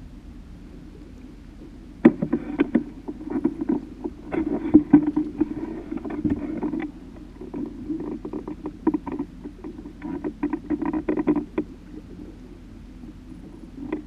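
Irregular knocks, taps and rustling aboard a small fishing boat, starting about two seconds in and stopping a couple of seconds before the end.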